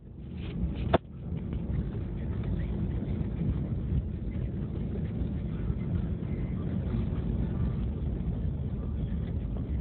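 Car driving, heard from inside the cabin: a steady low rumble of engine and tyres, with a sharp knock about a second in.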